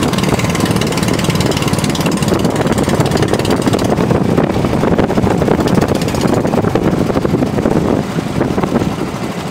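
Bangka outrigger boat's engine running under way with a rapid, steady beat, mixed with wind and water rush. It eases off slightly near the end.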